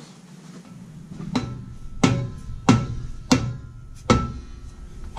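An orange mallet strikes the rear brake drum of a 1999 Kia Sportage five times, about two-thirds of a second apart, starting about a second and a half in. Each blow leaves the drum ringing briefly. The drum is stuck fast and is being pounded to break it loose.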